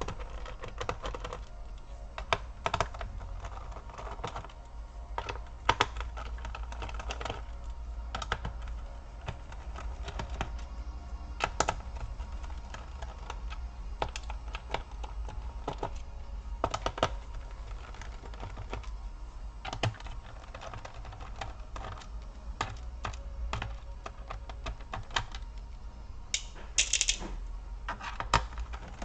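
Screwdriver taking the screws out of the plastic bottom case of a Toshiba Satellite C855 laptop: irregular light clicks and taps of the bit, screws and case, over a steady low hum.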